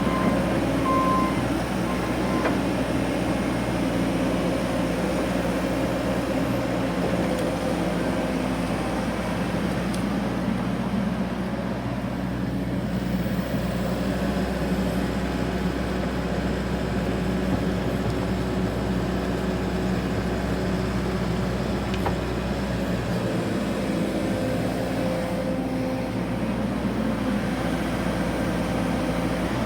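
Excavator's diesel engine running steadily, with a few short high beeps at the very start.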